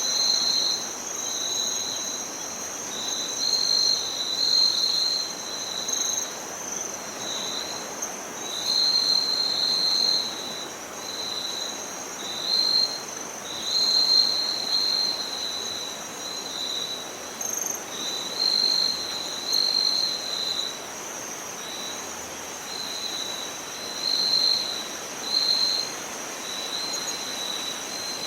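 Night insects trilling: one high continuous trill, with a second, lower trill starting and stopping in irregular phrases, over a soft background hiss.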